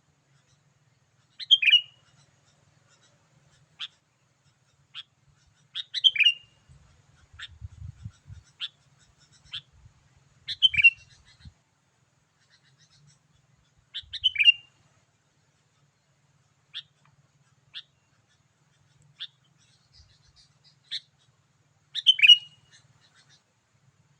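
Sooty-headed bulbul (kutilang) singing: short, loud, bubbly phrases repeated every four seconds or so, with single short chirps between them.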